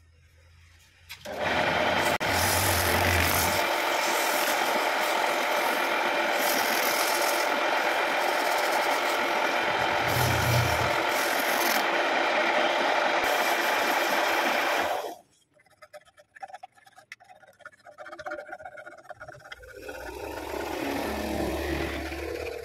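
Wood lathe motor running steadily with a guava-root piece spinning on it, starting about a second in and cutting off sharply about two-thirds of the way through. Near the end, sandpaper scrubs against the stationary wood by hand.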